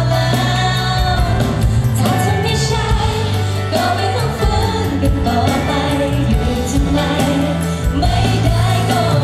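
Thai pop song performed live through a concert PA: a woman singing into a microphone over band accompaniment with keyboard.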